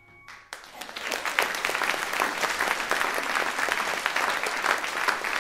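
Audience applause at the end of a sung concert number: the last held note dies away and the clapping breaks out about half a second in, quickly building to steady applause.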